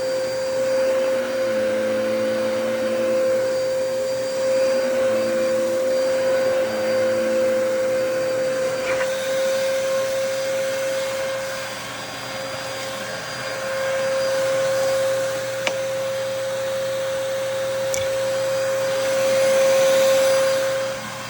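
Dyson DC33 Multi Floor upright vacuum cleaner running, with a steady motor whine over the rush of its airflow. Its sound swells and eases as it is worked, with one sharp click about two-thirds of the way through and a louder surge near the end.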